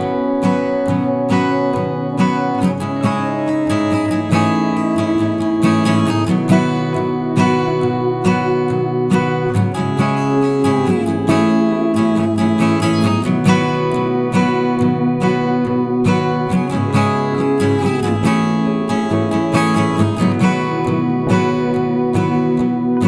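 Background music: acoustic guitar strummed and plucked at a steady pace.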